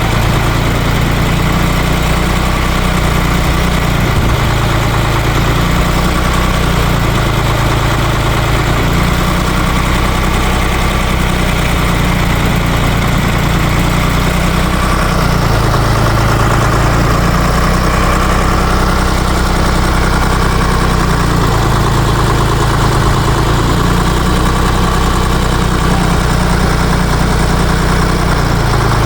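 Ditch Witch trencher-backhoe's three-cylinder air-cooled Deutz diesel running steadily. Its low note shifts every few seconds as the machine is worked.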